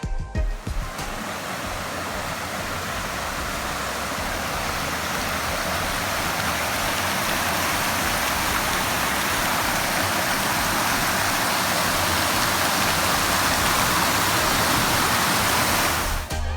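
Waterfall: a steady rush of falling water that slowly grows louder.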